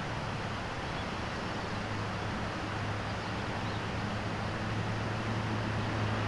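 A low, steady motor hum over constant background noise, swelling slightly toward the end.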